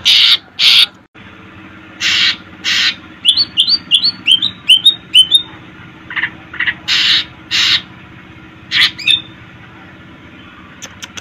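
Cucak ijo (green leafbird) singing: loud harsh notes in pairs, broken about a third of the way in by a quick run of about eight chirps, then more paired notes. A faint steady low hum runs underneath.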